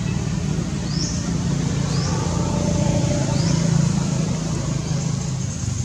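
Steady low rumble of a motor vehicle engine running, with short, high rising chirps about once a second over it.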